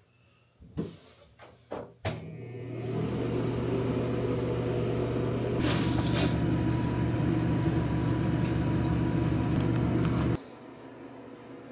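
A few knocks of a door, then a switch click and a steady electrical hum from a bathroom exhaust fan. The hum cuts off suddenly about ten seconds in.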